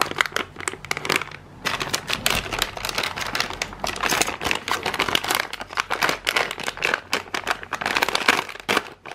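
Plastic packaging bag crinkling and crackling as it is handled and opened, in dense, irregular crackles.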